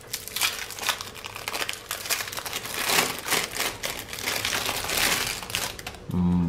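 Clear plastic wrapping crinkling and crackling as it is pulled off a 3x3x4 cuboid puzzle cube, stopping shortly before the end.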